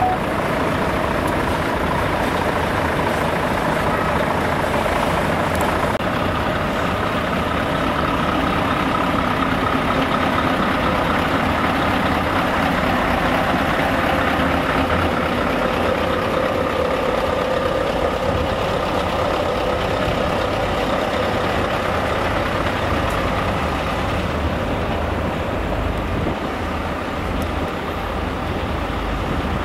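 Steady drone of a lorry engine running, mixed with wind rumble on the microphone.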